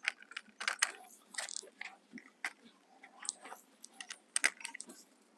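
Light, irregular clicks and crackles of hand work on a plastic motorcycle wheel cover: its plastic pieces and a small plastic bag of nuts and bolts being handled and fitted.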